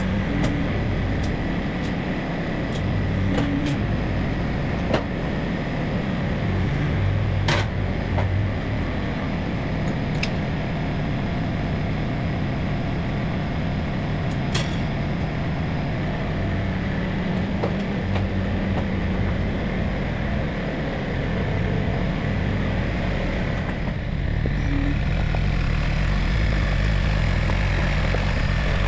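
A motor engine running steadily, with a few sharp clicks, and the engine note growing heavier and louder about four seconds before the end.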